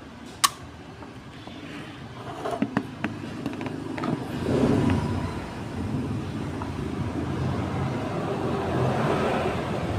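Aluminium drink can's pull tab cracked open with one sharp pop about half a second in, followed by a few small handling clicks, then steady background noise.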